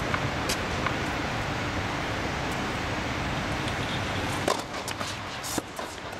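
Tennis balls struck by rackets: a serve hit from the far end of the court about four and a half seconds in, then a sharp return hit close by about a second later. A steady rushing background noise runs beneath, easing after the serve.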